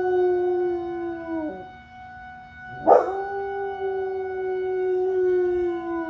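Rottweiler howling along with a fire alarm: one long howl sliding down and trailing off about one and a half seconds in, then a sharp start near the middle and a second long, slightly falling howl that ends near the end. The alarm's steady high tones sound underneath throughout.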